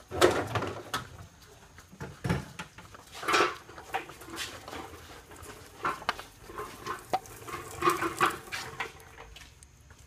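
Irregular clattering and knocking of the oil filter and its housing parts being handled as the filter is taken off the engine, with about ten separate knocks and scrapes.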